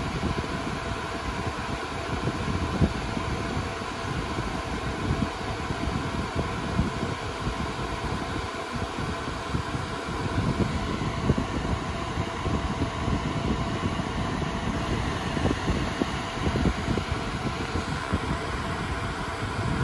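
Cooling fans of a Dell Compellent SCV2020 storage array running with a steady whir, a few faint steady tones in it.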